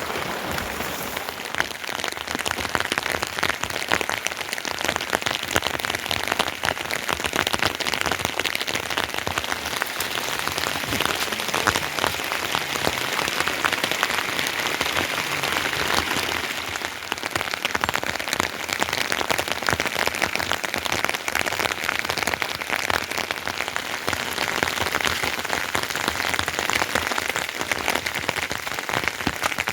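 Heavy monsoon rain falling steadily, a dense patter of countless drops hitting surfaces.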